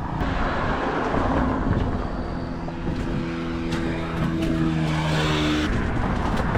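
Road traffic: a motor vehicle passes close by, its engine hum holding a steady pitch for a few seconds and then cutting off shortly before the end, over a constant rush of traffic noise.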